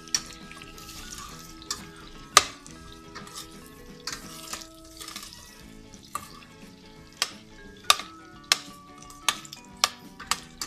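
A slotted metal spoon clinking and scraping against a stainless steel pot as potatoes and carrots are stirred while frying in oil, over a low sizzle. About ten sharp clinks come irregularly; the loudest is about two and a half seconds in.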